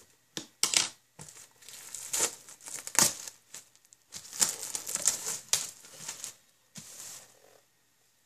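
Plastic shrink wrap being peeled off a DVD box set, crinkling and crackling in irregular bursts.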